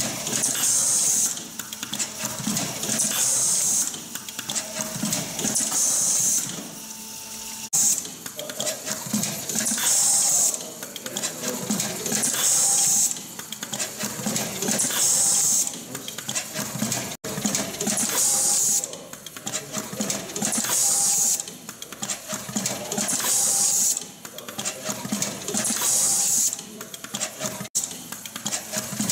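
J.A.M. CPR ZERO ST WP automatic wire cut-strip-crimp machine running through its cycle. There is a rapid mechanical clatter, and a short burst of hiss from its pneumatics comes about every two and a half seconds.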